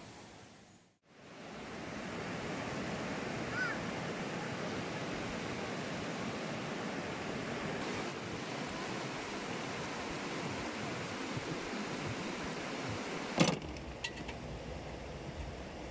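Steady rushing of flowing water, a river or stream, with a short chirp about three and a half seconds in. A sharp click comes near the end, after which the rushing is much quieter.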